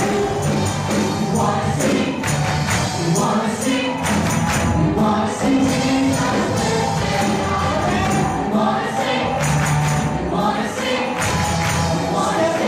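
A live worship band plays: a group of singers sings together into microphones over a drum kit and an acoustic guitar, with a steady percussion beat.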